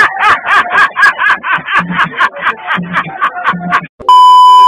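A man's hearty laughter in rapid, rhythmic bursts over music with a low beat. About four seconds in it cuts to a loud, steady test-tone beep of the kind played with TV colour bars.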